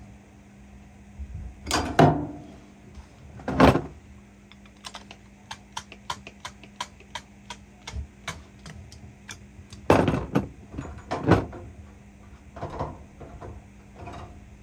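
Copper refrigerant tubing and tools being handled at a furnace: several loud knocks and clatters, and in the middle a run of light, evenly spaced clicks, about three a second, over a faint steady hum.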